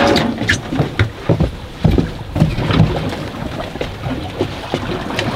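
Handling noise on a small fishing boat: irregular knocks and thumps over steady wind and water noise.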